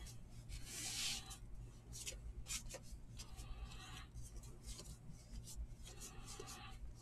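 Baseball trading cards sliding and rubbing against one another as a stack is thumbed through by hand: a few short papery swishes, the loudest about a second in, with light flicks of card edges in between.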